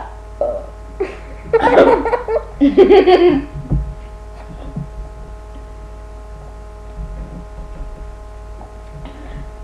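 Laughter in two loud bursts between about one and a half and three and a half seconds in, then a faint steady hum with a few soft low thumps.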